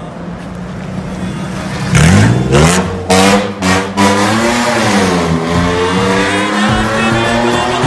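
Toyota Land Cruiser 70's engine revving through long aluminized headers, an exhaust cutout valve and a rocket muffler. It runs low, rises sharply about two seconds in, gives several quick throttle blips, then holds a raised speed whose pitch dips and climbs again.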